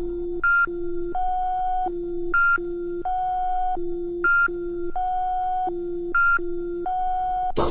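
Music: a stripped-down breakdown of an early-'90s techno record with the kick drum and bass dropped out. A bare synth riff of plain beeping tones jumps between a low, a middle and a high note, repeating about every two seconds.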